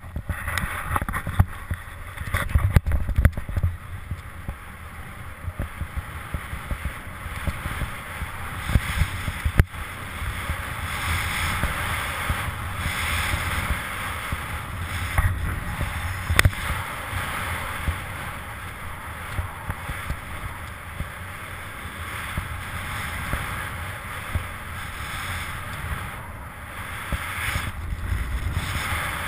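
Snowboard riding through deep powder snow: a continuous rushing hiss of the board through the snow, with wind buffeting the camera microphone in a low rumble. A few sharp knocks come in the first third.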